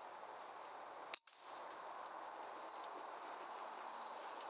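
Air rifle firing a single shot: one sharp crack about a second in.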